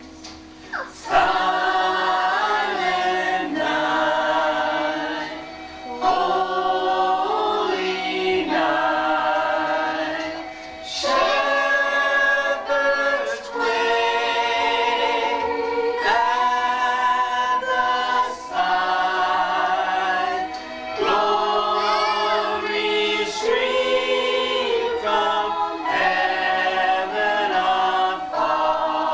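A family group of men, women and children singing a Christmas song together a cappella, in phrases with short pauses for breath between them.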